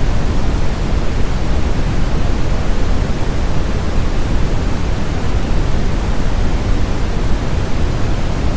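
Wood fire burning with a steady, low rushing noise and no distinct crackles.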